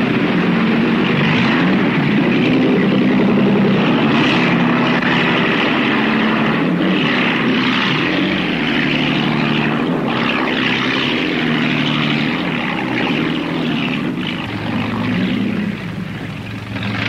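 Motorboat engine running steadily over rushing, splashing water; it eases a little near the end.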